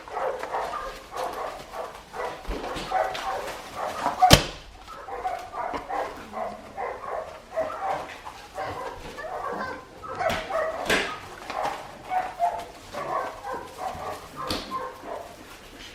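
A litter of four-week-old Australian Shepherd puppies vocalizing over one another in many short, high-pitched calls, with a sharp knock about four seconds in.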